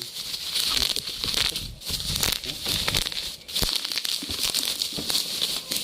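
Plastic packaging crinkling and rustling in irregular bursts as it is handled and pulled off a new helmet.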